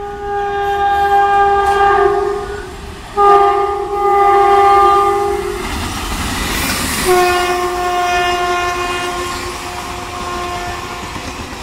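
Electric locomotive air horn sounded in three long chord blasts as an express passes at speed; the third blast is lower in pitch than the first two. Between the second and third blasts the rush of the passing locomotive is heard, and wheel clatter from the coaches runs on under the last blast.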